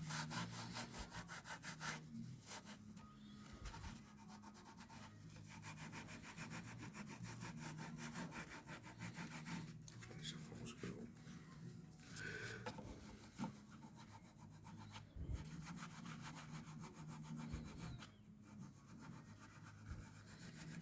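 Faint, rapid back-and-forth rubbing strokes as a stuck-on sticker and its sticky residue are scrubbed off a Macintosh SE's plastic case.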